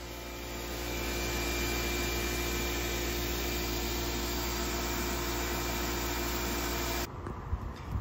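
Sandblasting gun in a blast cabinet blowing abrasive against an aluminium alloy wheel to strip its paint: a steady hiss over a steady hum, which cuts off about seven seconds in.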